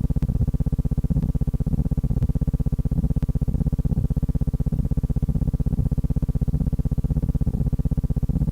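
Steady low buzz, pulsing rapidly and evenly.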